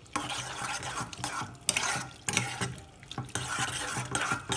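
A spoon stirring canned corn kernels in their liquid with butter in a saucepan: repeated wet swishing strokes with clicks of the spoon against the pan.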